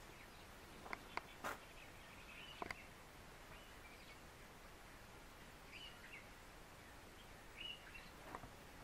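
Quiet ambient hiss with a few sharp clicks in the first three seconds and several faint, short bird chirps scattered through.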